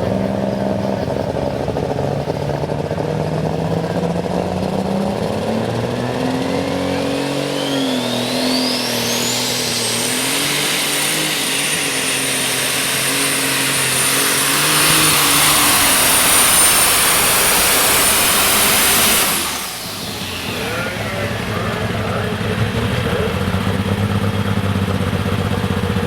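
Modified farm tractor's turbocharged diesel engine pulling under full load. A high turbocharger whine rises over a few seconds and holds. At about nineteen seconds the engine is suddenly throttled back, and the whine winds down as it drops toward idle.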